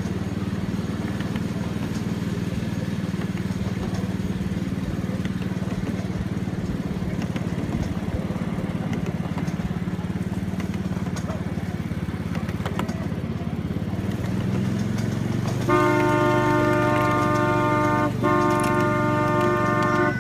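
Miniature ride-on train running along its track with a steady low hum, then about three-quarters of the way in its horn sounds a long, loud toot that drops out for an instant and carries on.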